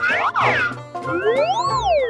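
Cheerful background music with cartoon sound effects: a quick swooping glide near the start, then a longer one that rises and falls back down in the second half.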